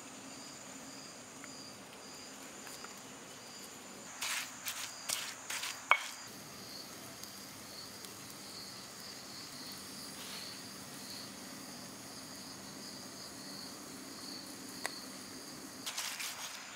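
Insects chirring steadily in a high, evenly pulsing trill over a faint low hum. A few sharp clicks and knocks come about four to six seconds in. Near the end, the stone roller starts knocking against a stone grinding slab.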